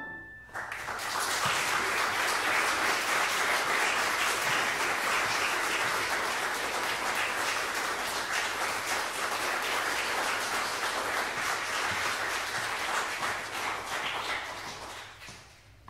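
Audience applauding at the close of a two-piano performance, breaking out about half a second in, just after the final piano chord dies away, and fading out near the end.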